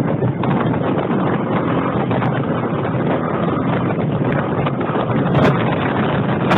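Motorcycle riding along at speed, its engine running steadily under heavy wind noise on a helmet-mounted phone microphone.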